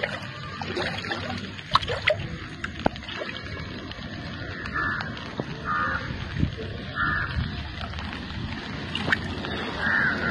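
Outdoor ambience by floodwater: a steady hiss with scattered clicks and knocks, and a few short calls about halfway through and again near the end.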